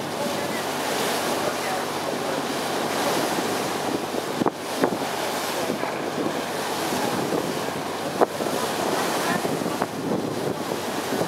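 Water rushing and splashing along the hull of a moving boat, with wind buffeting the microphone. A few short sharp knocks come about four and a half and eight seconds in.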